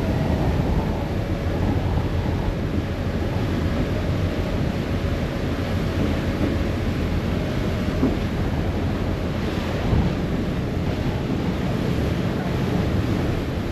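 Steady wind noise on the microphone and water washing past the hull of a moving harbour ferry, over a low engine rumble.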